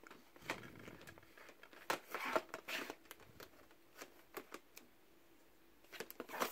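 Plastic DVD cases being handled at a packed shelf, one put back and the next pulled out: scattered light clicks and scraping rustles in a few short clusters.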